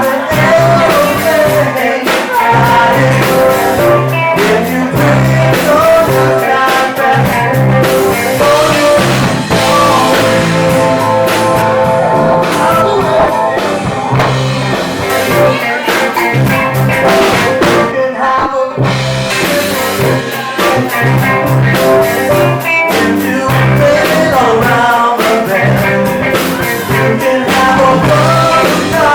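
Live band playing a funk-rock song: bass guitar, drum kit, electric guitar and a singer, with a steady pulsing bass line.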